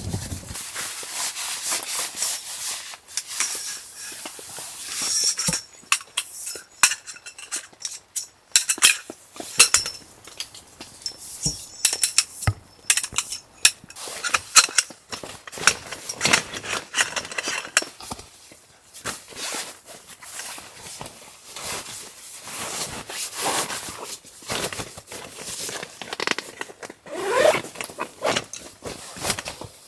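Camp gear being handled and packed: irregular rustling and handling noise with many sharp clicks and light metallic clinks.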